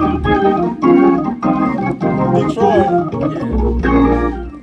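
Hammond tonewheel organ played in the COGIC church gospel style: full chords and quick runs on the manuals, with a heavy low bass note underneath near the end before the playing drops away.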